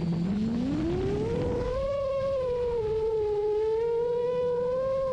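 Background music opening with a single synth tone that glides up in pitch over about a second and a half, then holds with a slow, wavering pitch.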